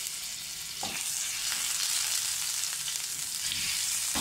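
Crushed ginger sizzling in hot oil in a pan, a steady hiss, stirred with a wooden spatula that scrapes the pan a couple of times.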